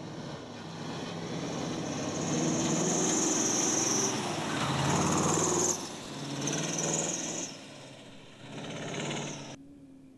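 Kamaz rally truck's diesel engine working hard as the truck drives past over rough desert ground, the engine note rising and falling in several surges with gritty hiss from the tyres and spray. The sound stops abruptly near the end.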